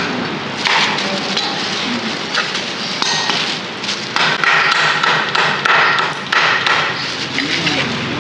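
Meat cleaver chopping crispy-skinned roast pork belly on a thick wooden chopping block: a series of sharp knocks at an uneven pace.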